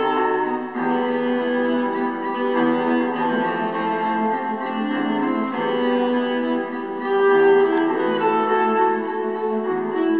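Music for bowed strings, violin with lower strings, playing long held notes that overlap and change slowly.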